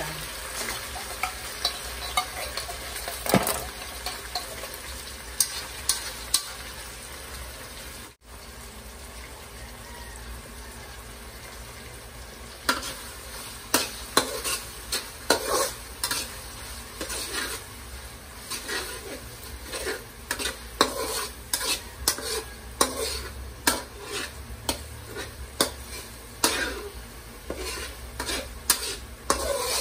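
Corned beef frying in oil with garlic and onion in a metal wok, sizzling steadily, while a metal utensil stirs and scrapes against the pan with frequent clinks. The sound cuts out for an instant about a third of the way in, and the stirring scrapes get much busier about halfway through.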